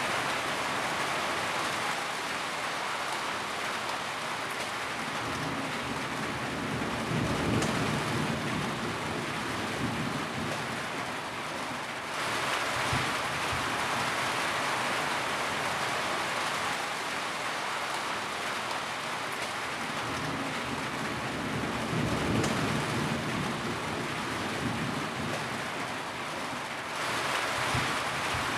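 Steady rain falling, with two low rumbles of distant thunder, about a quarter and three quarters of the way through.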